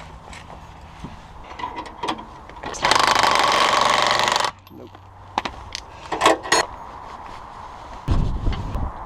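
An impact wrench runs lug nuts onto a wheel in one burst of about a second and a half, a fast hammering rattle that stops abruptly. A few metallic clicks and clinks follow, with a low thud near the end.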